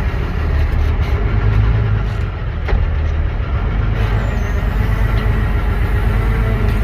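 Deutz-Fahr Agrotron tractor engine running steadily under load, pulling a Lemken Vari-Opal five-furrow plough.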